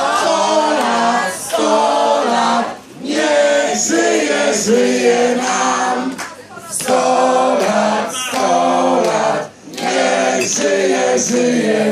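A crowd singing together, in phrases about three seconds long with short breaks between them.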